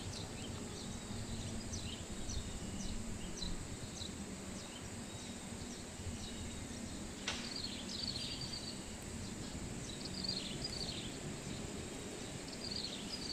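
Faint outdoor background noise with small birds chirping again and again, and a single sharp click about seven seconds in.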